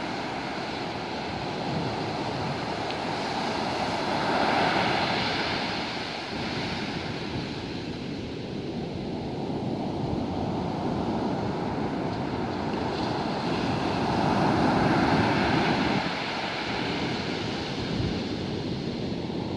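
Gulf of Mexico surf, larger than usual with storm swell from a passing hurricane, breaking and washing up a sandy beach. A steady rushing wash that swells louder twice, as bigger waves break about four seconds in and again around fourteen seconds.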